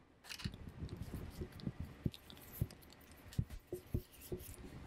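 Irregular crackling and soft clicks and knocks as plastic wrapping is pulled off a grow light's hanging cord and the cord is handled.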